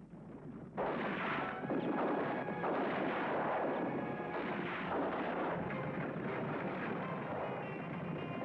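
Action soundtrack from a black-and-white western: gunfire amid the din of a horseback chase, starting suddenly and loud about a second in and continuing without a break.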